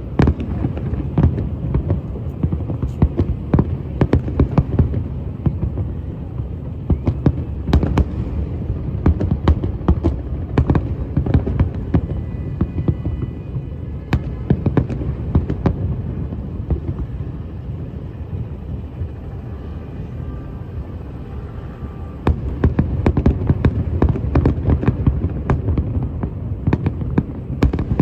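Fireworks going off: a continuous run of sharp bangs and crackles over a low rumble, growing louder and denser for the last few seconds.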